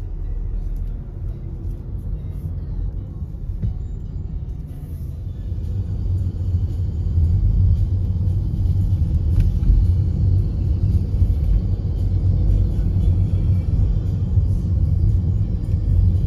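Low rumble of road and engine noise inside a moving car's cabin, growing louder about six seconds in.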